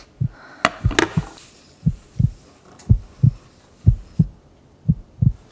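Heartbeat sound effect: paired low thumps, lub-dub, repeating about once a second, with a couple of sharp clicks in the first second.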